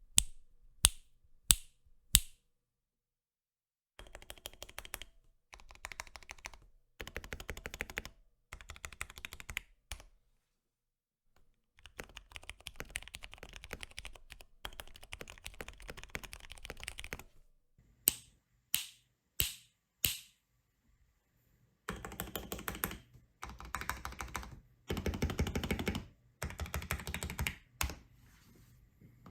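Akko 3068 mechanical keyboard being typed on. It opens with four separate key strikes, then runs of rapid typing with pauses between them, four more single strokes about two-thirds of the way in, and louder, faster typing near the end.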